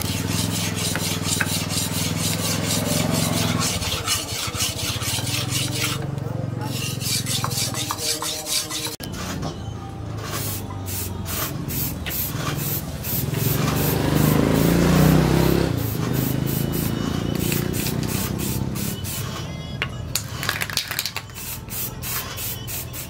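Steel machete blade rubbed back and forth on a flat whetstone in quick, repeated sharpening strokes. Near the end, an aerosol spray can hisses in short bursts.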